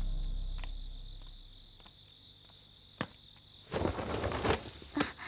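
Crickets chirring steadily at night as a low music cue fades out in the first second or so. A sharp click about three seconds in and a short rustling burst about four seconds in.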